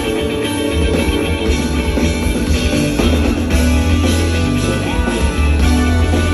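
Live funk band playing: a continuous groove with a prominent low bass line and electric guitar.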